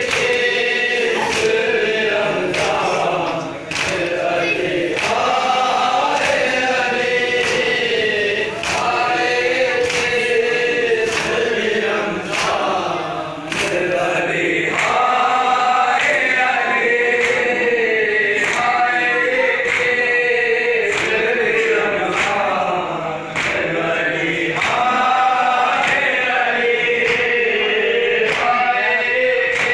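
A group of men chanting a noha, a Shia mourning lament, together, with a steady rhythm of sharp hand slaps on chests (matam) keeping the beat.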